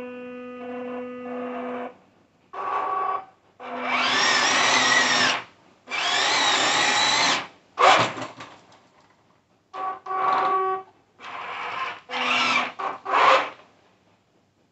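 SG1203 'Ripsaw' RC tank's electric drive motors whining in about seven short bursts as the tank is driven and spun on a tabletop. The first burst is low and steady at slow throttle; the bursts about four and six seconds in are the loudest and longest.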